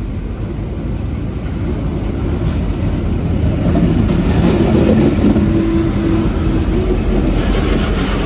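V/Line N-class diesel locomotive and its passenger carriages rolling past: a steady rail rumble and engine drone that grow louder to a peak about halfway through, then ease off a little.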